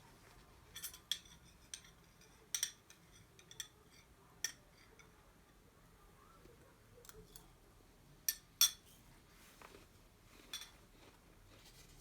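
Scattered light clicks and clinks of small hard objects being handled, a dozen or so at irregular intervals, the sharpest pair about eight and a half seconds in.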